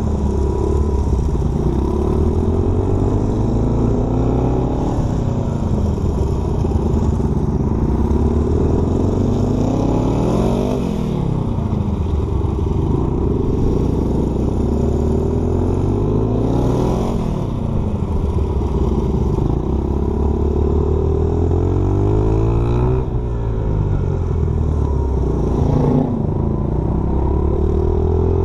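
Small dirt bike engine running under way, its pitch rising and falling again and again as the bike accelerates and eases off, with a sharp climb and drop about every six seconds.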